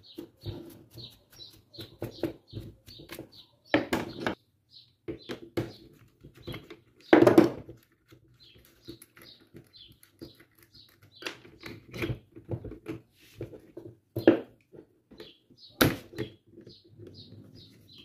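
Scattered knocks and clicks of a fan motor and its parts being handled and worked with pliers on a workbench. A small bird chirps over and over in the background, short high notes in quick runs.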